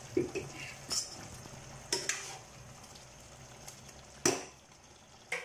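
Metal spoon stirring chicken curry in a pot, scraping and knocking against the pot a handful of times over a low sizzle of the curry cooking. The loudest knock comes about four seconds in.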